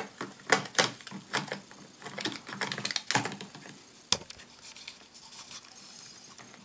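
Hard drive in its metal sled being slid into a MacBook's drive bay and settled by hand: a string of irregular light clicks and knocks, the strongest about three seconds in, thinning out after about four seconds.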